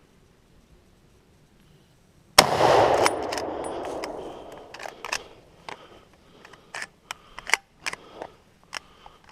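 A single rifle shot from a Remington 7600 pump-action in .270 Winchester about two seconds in, its report rolling away over a couple of seconds. A string of sharp metallic clicks and knocks follows as the pump action is worked; the owner could not get it to chamber another round.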